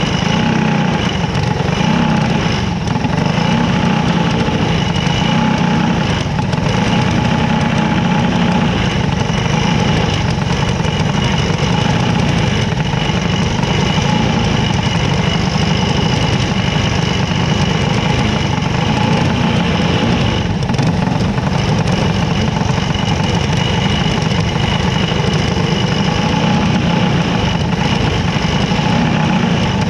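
Micro sprint race car engines idling steadily in a lineup on a dirt track, a constant loud rumble with a thin steady whine.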